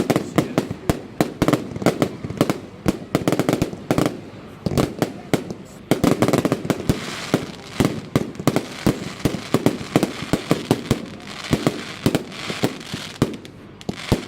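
Consumer fireworks going off in a dense, irregular string of sharp bangs, several a second, with bursts of crackling mixed in partway through and again near the end.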